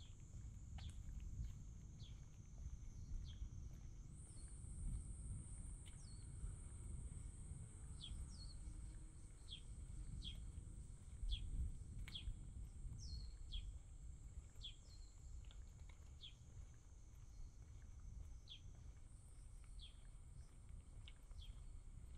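Quiet summer-morning street ambience: a bird gives short falling chirps about once a second over a steady high-pitched insect drone, which steps louder about four seconds in and shifts again near the end. A low rumble runs underneath.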